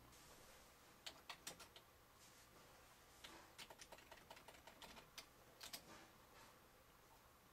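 Faint keystrokes on a computer keyboard, in short irregular runs of clicks.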